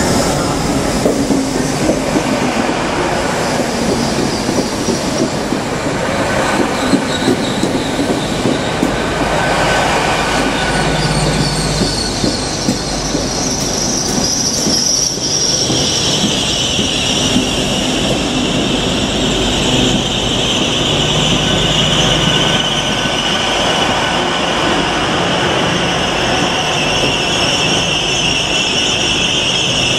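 Great Western Railway Class 800 bi-mode train running into the platform, a steady rumble of wheels on rail. About halfway through, a high-pitched squeal sets in and holds as the train slows.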